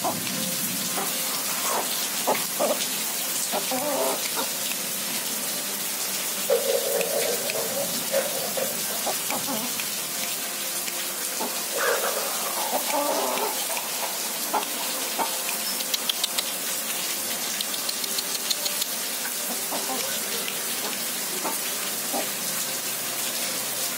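Free-range village hen clucking in short runs over steady rain, the clucking loudest about six to nine seconds in and again around twelve seconds.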